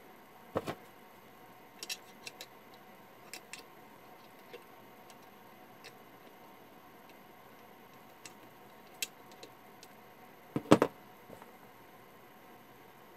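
A few scattered small clicks and light taps over a faint room hiss, with a louder double click about half a second in and the loudest cluster of clicks about ten and a half seconds in.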